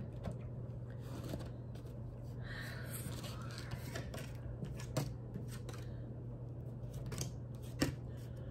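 A deck of cards being handled and shuffled: soft rustles and a few scattered light clicks, over a steady low hum.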